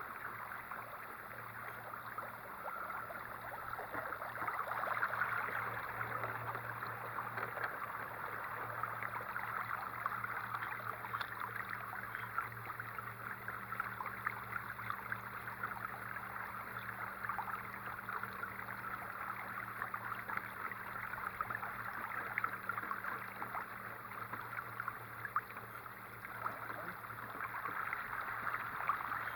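Water rushing and splashing along the hull of a 10-foot kayak as a 30 lb-thrust electric trolling motor pushes it, with a steady low hum underneath.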